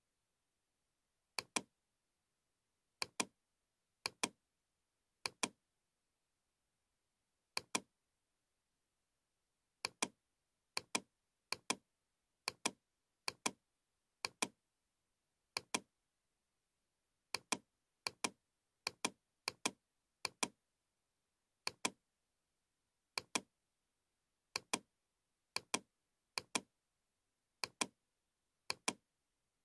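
Computer mouse button clicking about two dozen times at an uneven pace of roughly one a second, each click a quick double snap of press and release, with dead silence between. Each click places the next point of a spline in CATIA V5.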